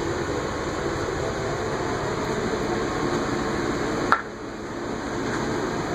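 Steady hum and hiss of a running vehicle, with a single sharp click about four seconds in, after which the sound briefly drops quieter.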